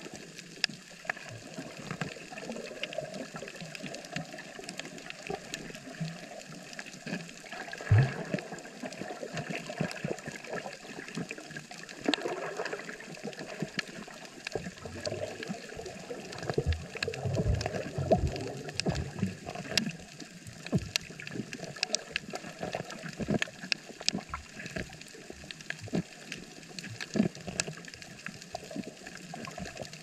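Underwater reef sound picked up through a camera housing: a steady crackle of many small sharp clicks over a watery hiss, with muffled gurgling swells now and then.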